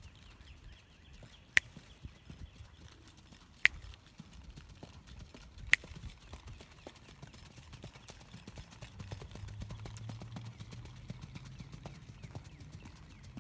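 Hoofbeats of a shod two-year-old single-footing filly moving at a quick, even four-beat gait on arena dirt. Three sharp clicks, about two seconds apart, stand out above the hoofbeats in the first half.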